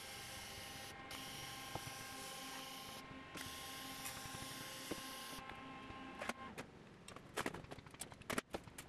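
TIG welding arc on laser-cut steel: a faint, steady hiss with a steady whine, broken off briefly twice and stopping about five and a half seconds in. Then a run of metal clicks and knocks as clamps and pliers are handled against the steel part.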